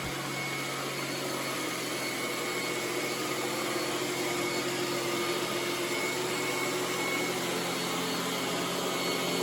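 iRobot Roomba S9+ robot vacuum running steadily, its suction motor and brushes giving a constant whir with a faint steady whine.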